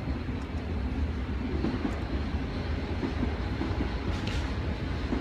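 Steady low background rumble with faint irregular rattling and clicking as a screw is driven into the handle of an ab crunch machine.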